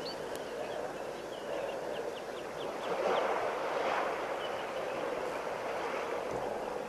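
Muddy water sloshing as an elephant wallows in a waterhole, a steady wash that swells about three seconds in. A bird gives a quick series of short high calls during the first three seconds.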